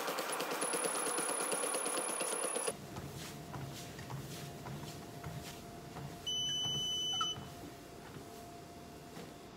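Fast, rhythmic footfalls of running on a treadmill belt that stop abruptly a few seconds in. After that a faint steady hum remains, with an electronic beep lasting about a second midway.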